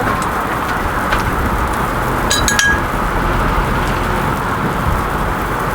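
Steady sizzling of food frying on a street-stall griddle. About two and a half seconds in, a metal utensil gives a brief ringing clink.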